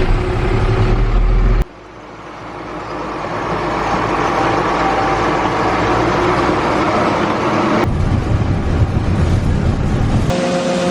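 Engine of harvest machinery running steadily. The sound changes abruptly at sudden cuts about two, eight and ten seconds in, building up gradually after the first. In the last part a steady whine sits over the engine.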